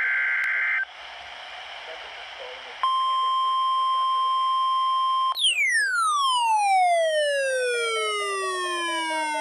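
NOAA Weather Radio emergency alert tones. A burst of SAME digital header data ends just under a second in and is followed by radio hiss. Then a steady single-pitch warning tone plays for about two and a half seconds, and an alarm tone with several overtones sweeps slowly down in pitch over about five seconds, restarting near the end, with a pulsing beep joining in partway through.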